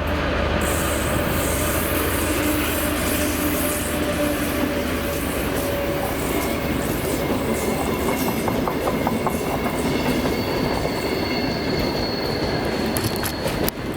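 Passenger cars of an ES1P Lastochka electric train passing close at speed, wheels running over the rails. Partway through, a repeating knock comes from one wheelset with a wheel flat, a flat spot worn into the wheel's tread, around the third or fourth car.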